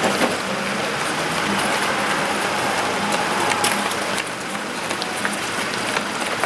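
Steady rushing outdoor noise with a few faint ticks.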